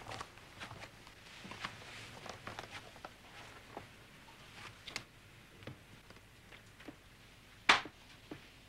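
A person creeping: soft, scattered footsteps and cloth rustling, with one sharp knock near the end, the loudest sound.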